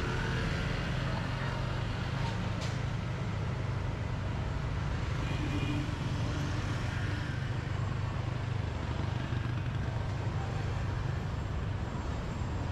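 Motorbike engine running steadily at cruising speed, heard from the pillion seat, with the road noise of surrounding scooters and cars in city traffic.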